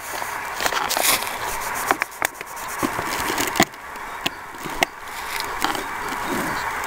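Close handling noise in dry leaf litter and twigs: irregular sharp clicks and crackles over a steady hiss.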